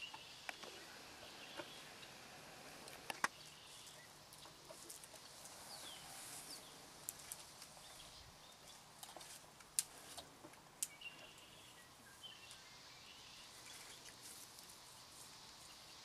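An African elephant chewing tree branches: faint crunching with a few sharp snaps of twigs and bark, the loudest about three and ten seconds in. Birds chirp faintly in the background.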